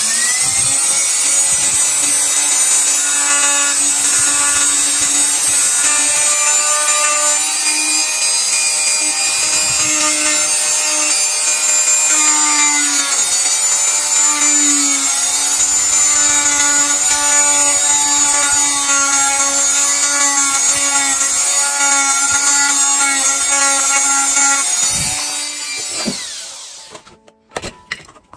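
Small electric power tool running with a steady high whine, its pitch dipping slightly now and then under load; it stops about 26 seconds in and spins down.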